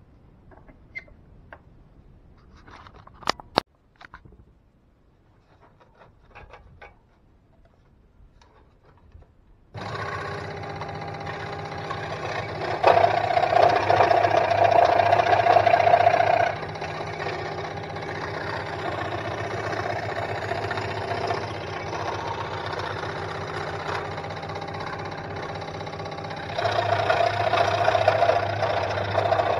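A few light clicks and knocks, then about ten seconds in a Sealey SM1302 scroll saw starts up and runs with a steady hum. It grows louder twice, for a few seconds each time, as its blade cuts through plywood fed by hand.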